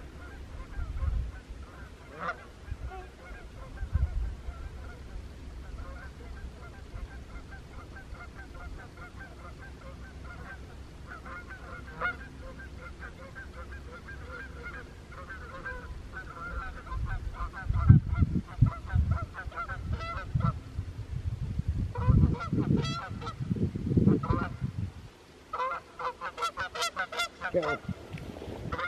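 Canada geese honking, many short honks in quick series that grow busier and louder toward the end, with a short lull just before the last burst. Several low thumps sound about two thirds of the way through.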